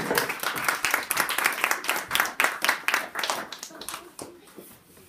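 A small audience applauding, many hands clapping densely, then dying away about four seconds in.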